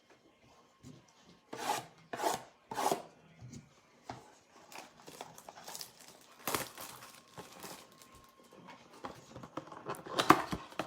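Trading-card packs and cards being handled: wrappers torn and crinkled and cards rubbing and sliding against each other. There are three quick rasping strokes in a row about two seconds in and a louder burst of rustling near the end.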